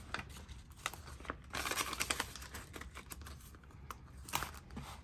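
Paper banknotes rustling and a clear plastic cash-binder envelope crinkling as bills are handled and slid into it. The sound comes as soft irregular rustles and clicks, with a longer burst of rustling about two seconds in.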